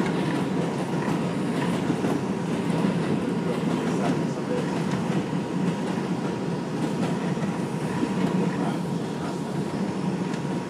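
R142 subway car running along elevated track, heard from inside the car: a steady rumble of wheels on rail with faint, scattered clicks of rail joints and a thin steady high tone.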